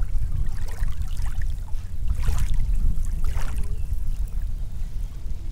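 Shallow seawater washing and splashing at the shoreline, with a few brief rushes about two and three seconds in, over a steady low rumble.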